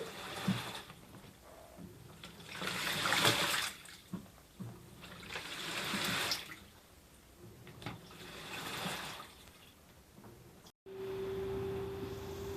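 Water sloshing and rushing inside a Panasonic NA-FA10K1 top-loading washing machine, in swells that come roughly every three seconds. After an abrupt cut about eleven seconds in, there is a steady hum with a single clear tone.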